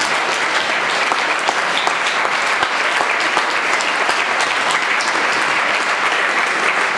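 An audience applauding steadily, many hands clapping at once in a large hall.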